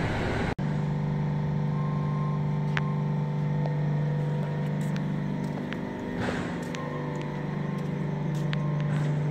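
Heavy truck's diesel engine idling, a steady low hum, with a few light clicks and a brief rush of noise about six seconds in.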